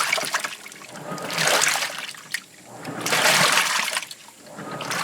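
Washing machine churning water and clothes, the sloshing swelling and fading in regular surges about every second and a half to two seconds.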